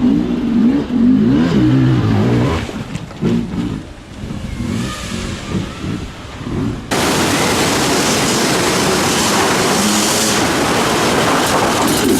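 Dirt bike engines revving and changing pitch, then an abrupt cut about seven seconds in to a loud, steady hiss.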